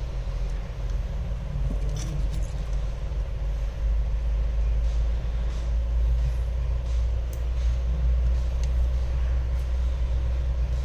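Steady low rumble that grows louder about four seconds in, with a faint steady hum and a few light clicks.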